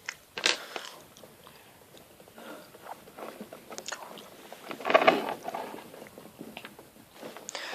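Plastic Lego Technic parts clicking and scraping as a small axle is worked out of the car's chassis, with a louder burst of rattling about five seconds in.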